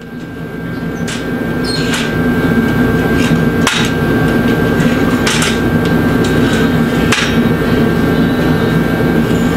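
Hammer blows on a steel frame: about five sharp metallic strikes a second or two apart, with a few lighter taps between, over a steady background hum.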